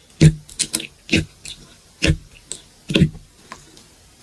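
Slime being squeezed and pressed by hand, giving a string of wet squelches and clicking pops, two or three a second at an uneven pace.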